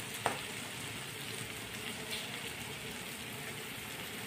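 A mixture of peas, lentils and ground spices sizzling steadily as it sautés in a steel pan, with one short click about a quarter second in.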